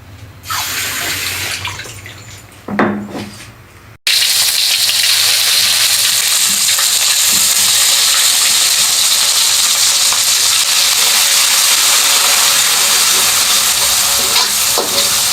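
Food sizzling steadily in hot oil in a pan, loud and even, starting abruptly about four seconds in. Before it come a couple of short noises.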